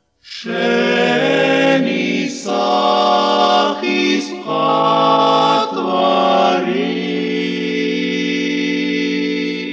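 Male vocal quartet singing in close harmony: a series of held chords that shift every second or so, closing on a long sustained final chord that cuts off near the end.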